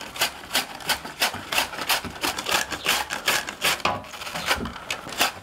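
Banana flower being sliced on a mandoline slicer over a pot, with a quick, even run of scraping slicing strokes, about three a second.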